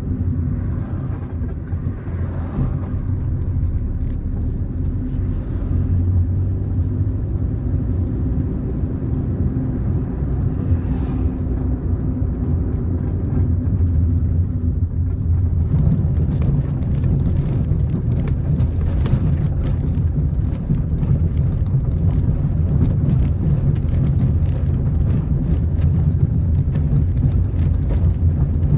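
Car being driven on the road: a steady low engine and road rumble. About halfway through the drone shifts in pitch, and after that it is dotted with many small clicks and rattles.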